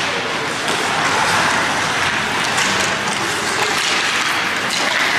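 Steady noisy din of an indoor ice hockey rink during play: skates on the ice and spectators, with a few faint knocks of sticks and puck.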